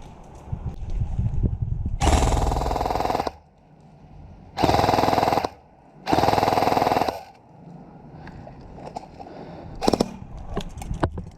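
Airsoft gun firing three full-auto bursts, each about a second long, with short pauses between them; a few single sharp clicks follow near the end.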